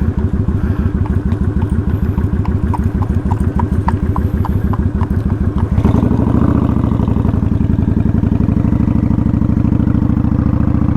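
Kawasaki Vulcan 900's V-twin engine with a Vance & Hines aftermarket exhaust idling with a loping beat, a light ticking about four times a second over it. About six seconds in the engine is throttled up and runs louder and faster as the motorcycle pulls away.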